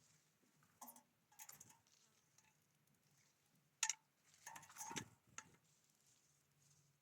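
Faint, irregular sharp taps and clicks, about half a dozen, the loudest a little before the four-second mark, over a faint low hum.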